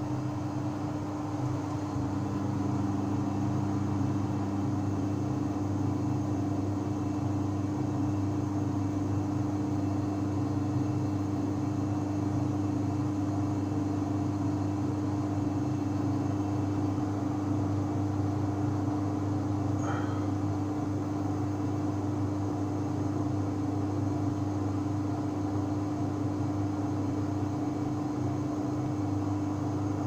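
Samsung WW70J44A3MW front-loading washing machine spinning at 400 rpm: the Digital Inverter motor and turning drum give a steady hum with a few held tones.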